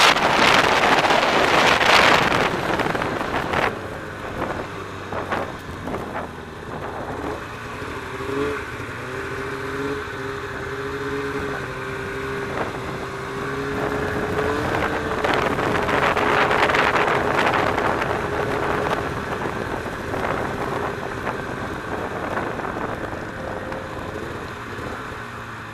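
Snowmobile engine running at speed with wind rushing over the microphone, loudest in the first few seconds and again about two-thirds through. Through the middle the engine holds a steady tone, and it eases off near the end as the sled slows.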